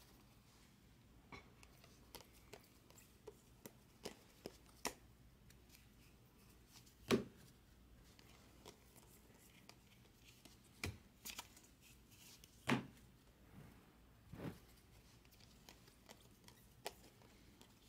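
A stack of baseball trading cards being handled and flipped through by hand: scattered soft clicks and taps of cards sliding and snapping against each other, with a few louder knocks.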